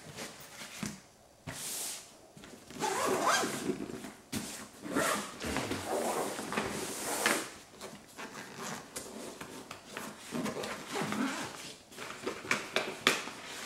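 Handling noise from rummaging through a soft fabric tackle bag: nylon rustling, the bag's flaps and pockets being pulled open, and gear shifting and knocking inside, in uneven bursts with a few sharp clicks.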